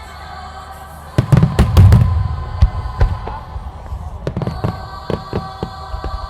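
Aerial firework shells bursting: a rapid cluster of loud booming bangs about a second in, followed by scattered sharper pops and cracks, over steady background music.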